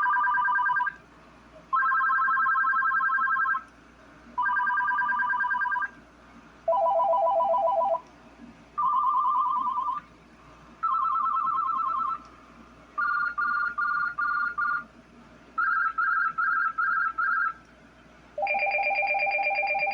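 AT&T EP5995 5.8 GHz cordless phone playing through its ringtone choices one after another: about nine short electronic trilling rings, each at a different pitch, separated by short pauses. Two of the rings near the middle come as quick pulses, and the last sounds a low and a high tone together.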